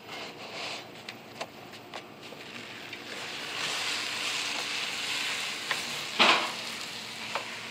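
Arbi (taro root) sizzling in a frying pan as it is stirred with a wooden spatula, with light clicks of a metal spatula on the roti griddle. The sizzle swells in the middle, and a louder scrape comes about six seconds in.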